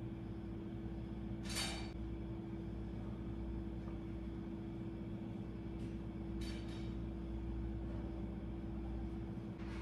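Steady mechanical background hum with a constant tone, and two brief soft swishes, one about a second and a half in and one about six and a half seconds in.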